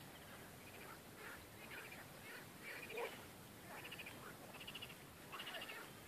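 A faint chorus of frogs calling from the flooded marsh: many short, pulsed, rattling calls overlapping, a few every second.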